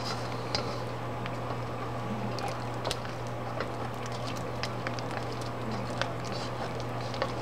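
Silicone spatula stirring and folding a thick, sticky tapioca starch paste in a nonstick wok, giving scattered small clicks and squelches over a steady low hum.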